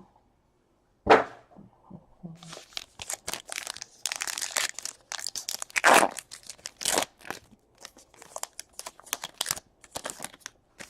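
A trading card pack's wrapper being torn open and crinkled. One loud sharp rip comes about a second in, followed by a long run of crackling rustles.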